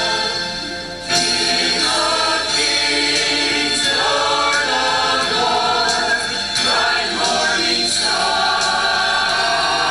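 Mixed church choir of men's and women's voices singing together, briefly softening then coming back in at full strength about a second in.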